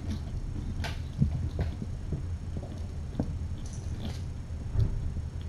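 Kittens scampering and playing on a hard floor: scattered soft thumps and clicks from paws and toys over a steady low hum.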